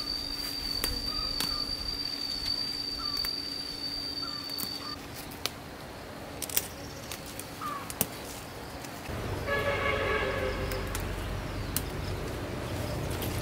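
Rural garden ambience: an insect's steady high trill that stops about five seconds in, with faint short chirps and scattered small snaps of leaves and stems being picked by hand. About two-thirds of the way through, a pitched animal call lasts a second or two over a low rumble.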